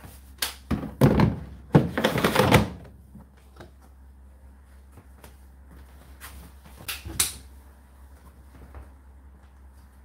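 The plastic water container of an Indesit condenser tumble dryer being slid back into its slot. A few clicks are followed by about two seconds of plastic scraping and knocking, with two more sharp clicks about seven seconds in.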